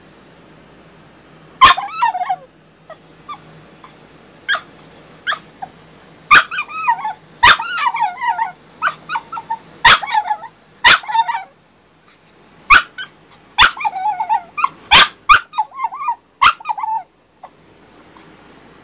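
French bulldog barking and yipping in a string of sharp outbursts, about a dozen, several drawn out into wavering whines and howls. She starts about two seconds in and stops shortly before the end. The dog is protesting being shut in her crate.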